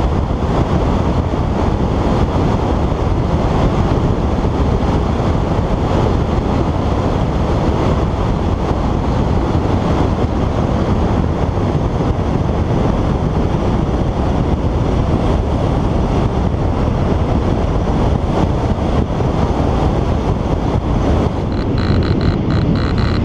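Steady, loud wind rush buffeting the microphone of a SkyWalker FPV plane's onboard camera in flight. Near the end a thin high steady tone joins in.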